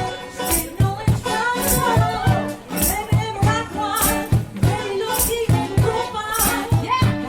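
Jazz-pop vocal trio singing in close harmony over a steady bass line, with hand percussion shaken on the beat.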